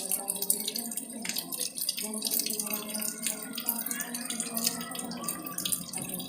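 Flowing water splashing and gurgling, with many quick drips and patters throughout.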